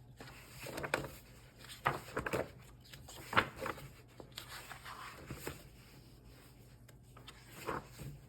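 Scattered light knocks and clicks in a small room over a low steady hum, the sharpest about three and a half seconds in.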